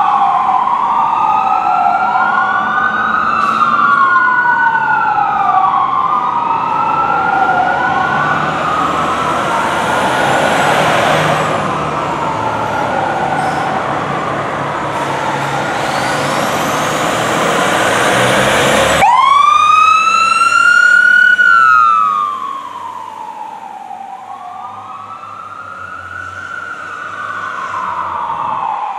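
Fire truck sirens wailing, two of them rising and falling out of step, with a loud rushing noise building under them midway. About two-thirds of the way through the sound cuts abruptly to a single, quieter wailing siren.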